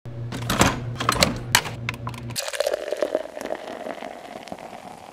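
Single-serve pod coffee maker brewing: a pump hum with sputtering clicks, then about two and a half seconds in the hum stops and a steady stream of coffee runs into the mug.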